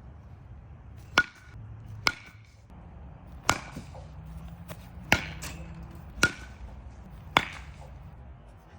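Baseball bat hitting balls: six sharp cracks of contact roughly a second apart, each with a short ringing ping, and a couple of fainter knocks between them.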